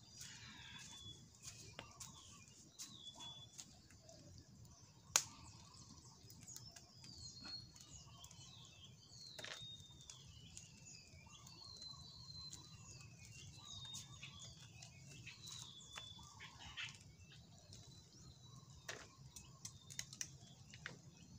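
Small birds chirping: repeated short, high calls that fall in pitch, with scattered faint clicks and one sharp snap about five seconds in.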